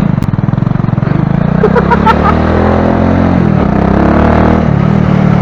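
Motorcycle engine running under way in traffic, its note shifting up and down in the middle as the rider works the throttle.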